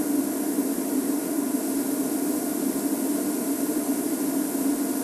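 Steady hum of a safari vehicle's engine idling, with an even hiss over it.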